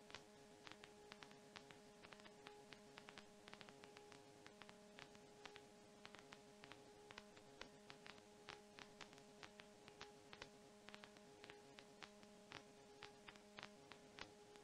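Near silence: a faint steady hum with frequent faint, irregular clicks and crackles.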